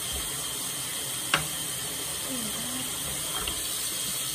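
Bathroom sink tap running steadily, with a single sharp click about a third of the way in.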